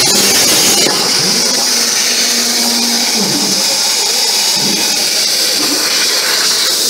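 IndMaf IP1530 CNC plasma cutter giving a loud, steady hiss of arc and air. It drops a little in level about a second in, and faint sliding tones waver underneath.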